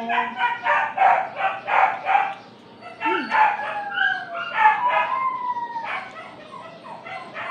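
Animal calls: a quick run of short pitched calls over the first two seconds, then, after a brief lull, longer calls that slide up and down in pitch.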